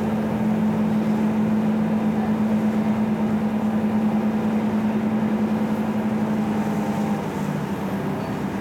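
Cataño ferry's engine running steadily, a low drone with a held hum, easing slightly about seven seconds in.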